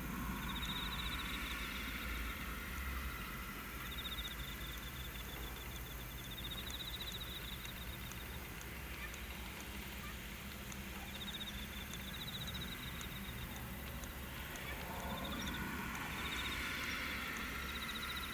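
Insects trilling: repeated high-pitched pulsed trills a second or two long, over a steady low hum and a soft rushing noise that swells near the start and again near the end.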